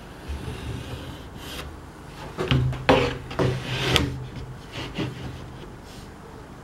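Wood rubbing and scraping against a plywood sheet while a line is marked across it, loudest in a run of strokes from about two and a half to four seconds in.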